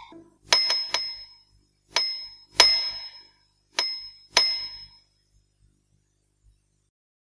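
A small metal bell struck about seven times in short, bright dings: a quick triple near the start, then two pairs, each ring fading quickly.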